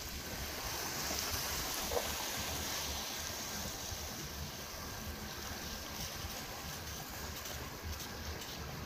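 Steady wind buffeting the microphone over the wash of sea water against a rocky jetty, with one brief click about two seconds in.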